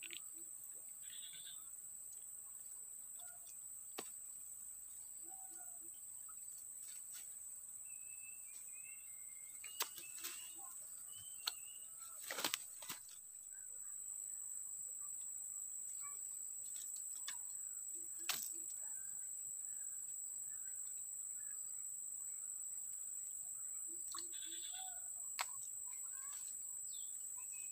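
Creekside ambience: a steady high-pitched insect drone, birds chirping on and off, and a few sharp clicks from handling the rod and catch.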